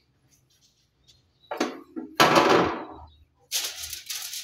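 Aluminium foil crinkling and rustling in three short bursts, the loudest about halfway through, as a marinated leg of mutton is handled and shifted on it.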